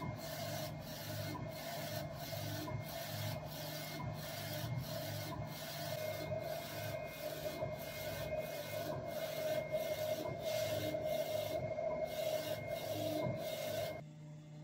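Label printer running while it prints on aluminium foil, with a steady hum and an even pulse about one and a half times a second. It cuts off suddenly about fourteen seconds in.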